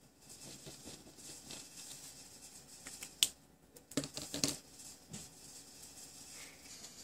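Quiet room tone with faint handling sounds of art supplies on a desk: a sharp click about three seconds in, then a few short taps and clicks around four seconds in.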